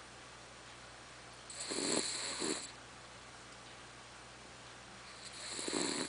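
Sleeping poodle snoring: two long snores about four seconds apart, each with a high whistling tone over a raspy low part.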